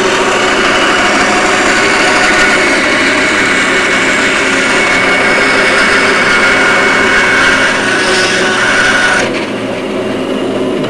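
Electric motor of a Ridgid power tool running with a steady high whine, then cutting off sharply about nine seconds in, leaving a lower hum.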